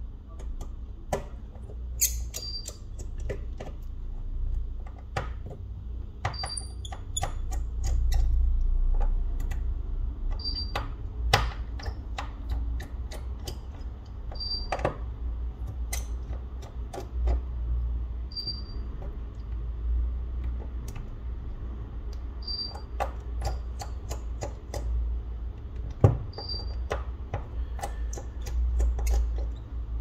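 Small tools clicking and tapping on phone parts during a repair, irregular sharp clicks over a low rumble, with a short high beep about every four seconds.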